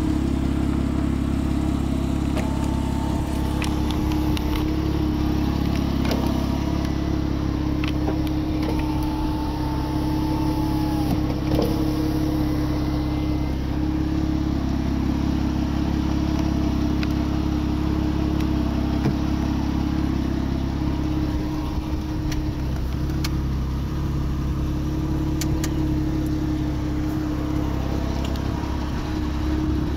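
Porsche Boxster RS60's flat-six engine idling steadily, with no revving.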